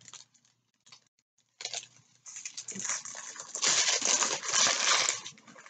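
Small plastic bags of diamond-painting drills rustling and crinkling as they are handled, starting about two seconds in, with many small clicks of the resin drills inside.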